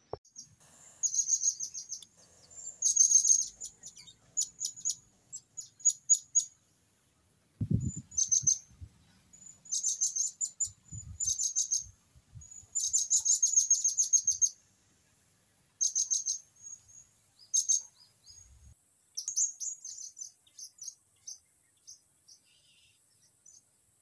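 Blue-crowned hanging parrots (serindit) calling: short runs of rapid, thin, high-pitched chirps every second or two, thinning to scattered single notes near the end. A few low thumps come in around the middle.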